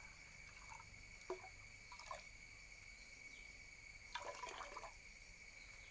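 Faint splashes and drips of water: a few short ones, then a longer splash about four seconds in, over a steady high-pitched hum.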